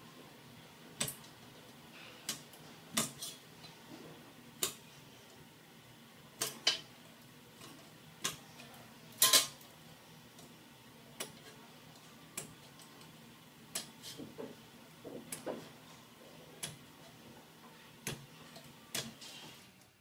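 Irregular light clicks and metallic clinks of perforated metal cable tray and hand tools being handled and tapped on a workbench and vise during marking out, with one louder clank about nine seconds in.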